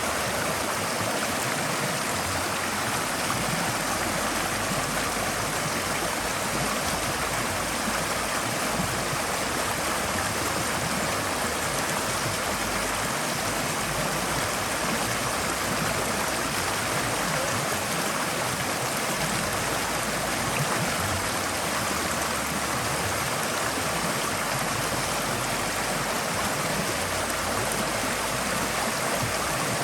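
Forest stream flowing over rocks: a steady, continuous rush of water.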